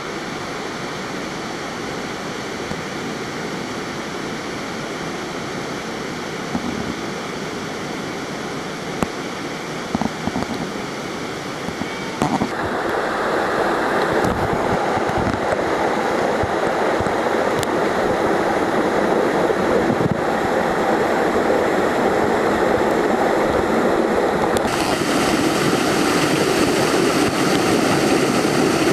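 Rushing water of a small mountain-gorge waterfall and torrent. It is a steady rush that gets louder about twelve seconds in and brighter near the end, with a few short knocks in the first half.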